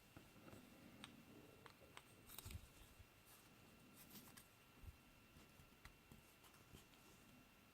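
Faint, scattered small clicks and taps of Kwikset lock parts being handled while the picked lock is taken apart, a little busier about two and a half seconds in. A faint steady high tone runs underneath.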